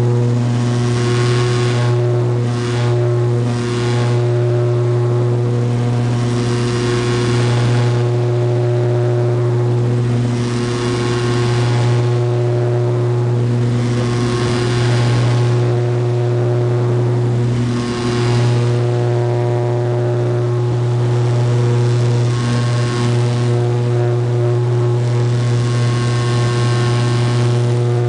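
Turboprop airliner's engines and propellers at takeoff power during the takeoff roll and climb, heard from inside the cabin beside the propeller: a steady low propeller drone with several steady tones above it, and a rushing noise that swells and fades every few seconds.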